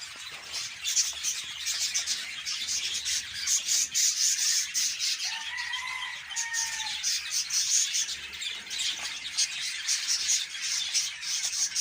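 Caged budgerigars chattering and warbling in a dense, scratchy stream of high twitters and clicks, with one clearer, longer call about halfway through.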